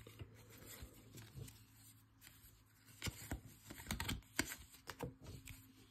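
2023 Topps Update baseball cards being flipped through one at a time in a hand-held stack: faint sliding rubs of card stock with light clicks, several sharper clicks from about halfway on.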